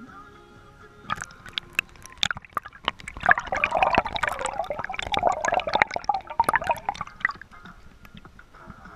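Water splashing and sloshing in a busy, irregular run of splashes and drips that is thickest in the middle.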